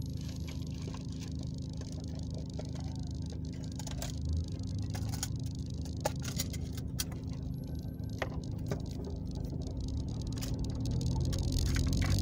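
Car idling in traffic, heard from inside the cabin as a steady low hum, with scattered light clicks and rattles. Over the last couple of seconds the low rumble grows louder as the car starts to move.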